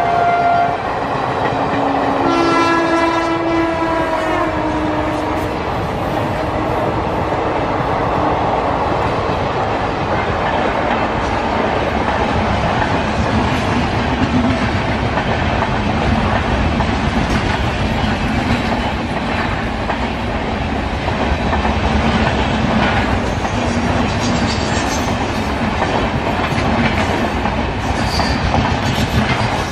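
Indian Railways express passenger trains passing each other at speed. An electric locomotive horn sounds at the very start, and another horn about two seconds in drops in pitch as it goes by. Then the coaches roll past with a steady rumble and wheels clattering over the rail joints.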